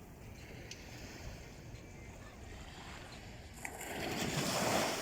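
Sea waves washing in, with a low steady rush. One surge builds over the last second and a half and peaks just before the end.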